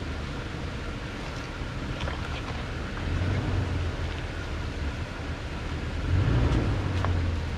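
Toyota Tundra's V8 engine running at a slow trail crawl, a steady low hum that swells a few seconds in and again near the end. Tyres crunch over loose rock, with a few sharp clicks of stones.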